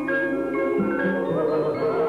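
Jingle music: bright struck mallet-percussion notes like a glockenspiel, with voices beginning to sing with vibrato about halfway through.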